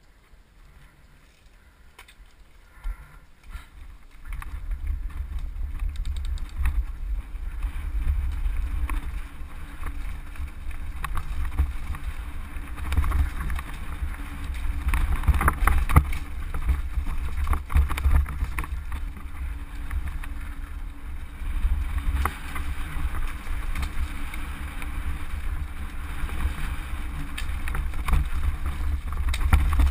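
Wind rumble on an action camera's microphone together with the rattle and clatter of a mountain bike riding fast down a rocky trail, tyres knocking over loose stones. It starts about four seconds in, after a quiet moment at a standstill.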